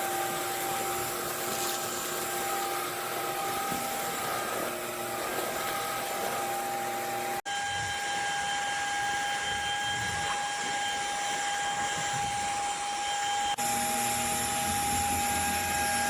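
Cordless stick vacuum motor running with a steady high whine, its tone changing abruptly twice.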